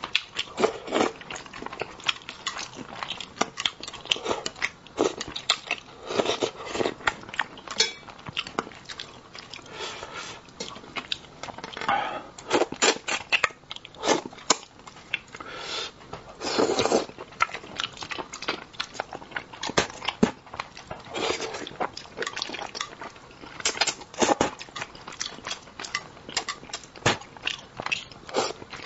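A person chewing and eating spicy braised fish close to the microphone: wet mouth smacks, sucking and chewing clicks coming thick and irregularly.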